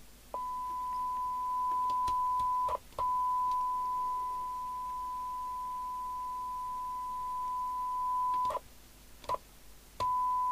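Steady test tone from an FM CB radio's speaker, switching on and off as the receiver's squelch opens and closes while its squelch preset is adjusted. The tone drops out briefly twice, with a short burst of noise at each change.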